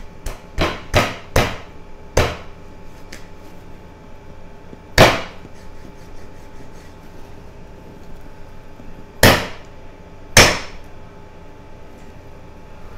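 Heavy meat cleaver chopping into raw lamb rib bones to crack them: five quick blows in the first two seconds, then three harder single blows a few seconds apart.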